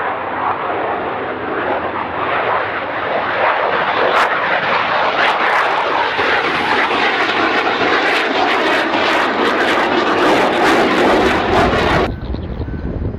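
Saab JAS 39 Gripen fighter's single Volvo RM12 turbofan at full power as the jet climbs past: loud, rushing jet noise that builds, with sharp crackles from about four seconds in. It cuts off abruptly near the end, replaced by a quieter, lower jet rumble.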